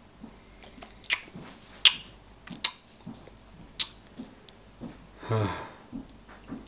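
Metal spoon clinking against a stainless steel bowl of jelly, a few separate sharp clicks about a second apart, between quiet wet mouthfuls of jelly being eaten. A short low vocal sound comes near the end.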